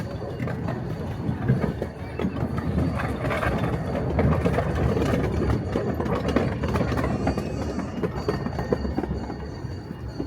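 Miniature railway train running along the track: a steady rumble with frequent clicks of wheels over rail joints, growing a little louder midway.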